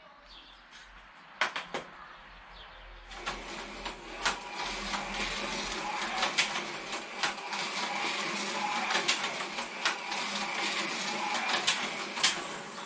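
Slot car running on a plastic track: a steady whine from its small electric motor starts about three seconds in, with many sharp clicks and clacks throughout.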